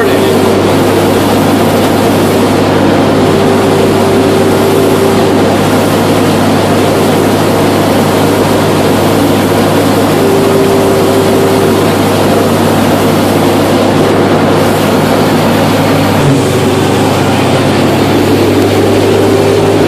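John Deere 55 combine running steadily: a loud, even mechanical drone with a low hum, and a higher whine that fades in and out several times.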